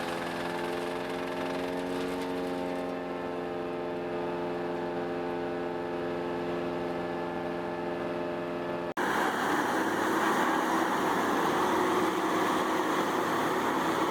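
Large wood chipper and its driving engine running with a steady, even hum. About nine seconds in, the sound cuts abruptly to a louder, rougher machine noise.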